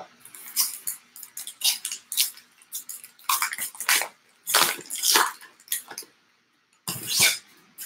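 Trading cards being slid and flicked one by one through a handheld stack: a quick, irregular run of short swishes and flicks.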